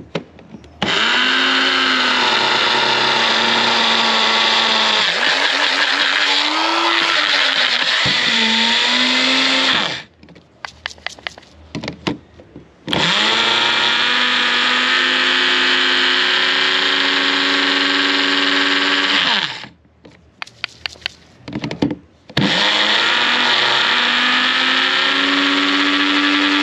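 Magic Bullet blender grinding dry oats into flour, its motor running in three long spells of several seconds each with short stops between. The motor whine climbs a little in pitch during the last spell.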